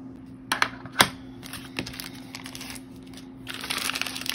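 Objects being handled on a tabletop: a few sharp clicks and taps, the loudest about a second in. In the last second comes the crinkling of the clear plastic wrap around a rolled diamond-painting canvas as it is picked up.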